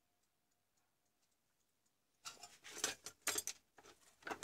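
Hands handling small objects on a workbench: about two seconds of near silence, then a quick cluster of clicks and rattles, and one more click near the end.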